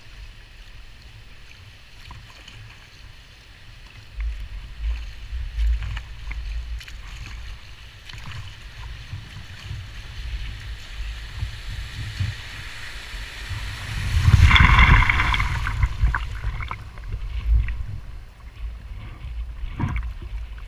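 Kayak paddle strokes dipping and splashing in fast-flowing river water, over a gusty low rumble. A loud splash of water comes about two-thirds of the way through.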